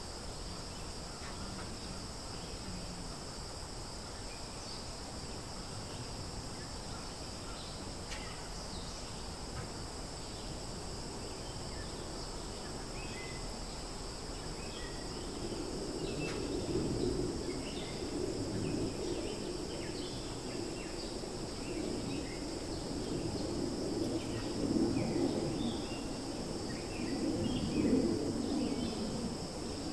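Forest ambience: a steady high-pitched insect drone, like cicadas or crickets, with scattered short bird chirps. From about halfway a louder low noise comes and goes.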